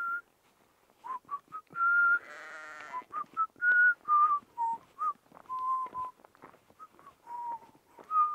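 A person whistling a tune, a string of short and held notes, with a sheep bleating once about two seconds in.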